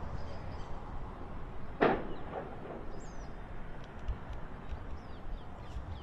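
Outdoor field recording of a burning building: a low rumbling background with one sharp bang about two seconds in, and faint high chirps later on.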